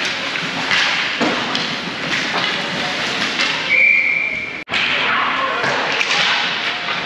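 Game noise of a youth ice hockey scrimmage: repeated thuds and knocks of pucks, sticks and players against the boards, with voices. About four seconds in a whistle blows one steady blast of just under a second, and the sound cuts out for an instant right after it.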